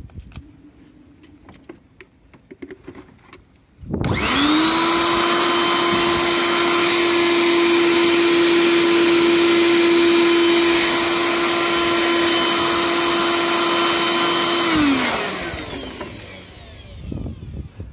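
Air blower switched on about four seconds in with its hose pushed into the empty oil filter housing, blowing the leftover engine oil out of the engine. It runs steadily with a high whine for about eleven seconds, then is switched off and winds down, falling in pitch; small handling clicks come before it starts.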